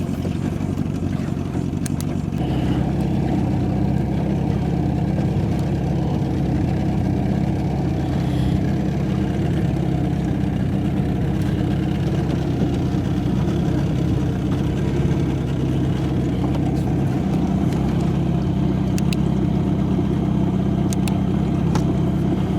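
Boat engine running steadily at low speed. It picks up slightly about two and a half seconds in, then holds steady.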